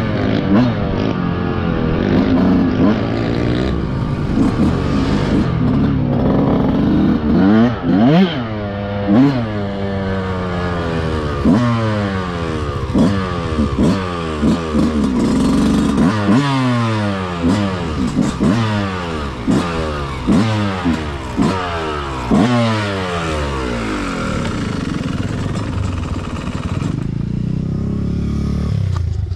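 Dirt bike engine heard from the rider's own bike, revving up and falling back again and again, about once a second, as the throttle is worked at low speed. In the last few seconds it settles to a steadier, lower idle.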